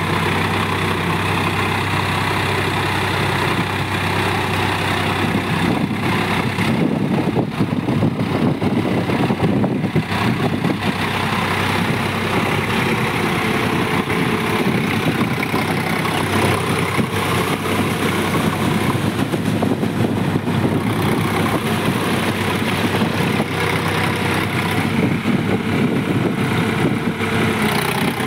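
Sonalika DI-47 RX tractor's diesel engine running steadily while it drags a rotary tiller through flooded paddy mud.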